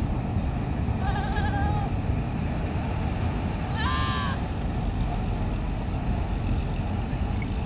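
A goat bleating twice in short, wavering calls, about a second in and again near the middle, over a steady low rumble.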